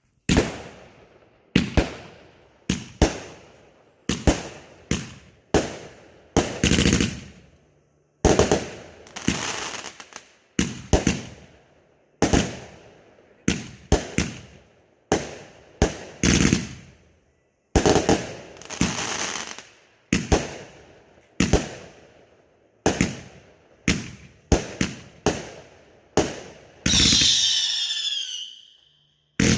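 Fireworks going off in quick succession: sharp bangs every second or two, many trailing off in a fading crackle, with a wavering high whistle for about two seconds near the end.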